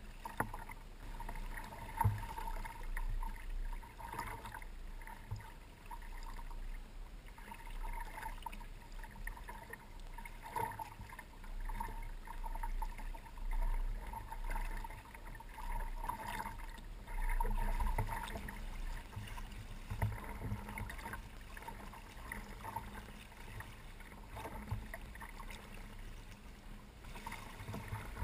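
Water rushing and splashing along the hull of a Hobie Adventure Island sailing kayak moving under sail, with an uneven low wind rumble on the microphone.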